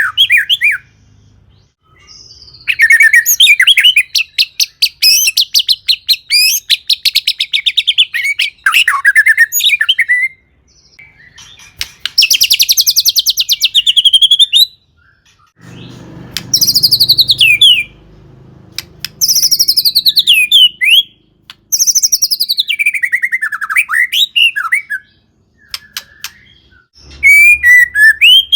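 White-rumped shama singing loudly in bursts: rapid rattling trills and clear whistled notes that slide downward, packed with mimicked calls, with short pauses between phrases.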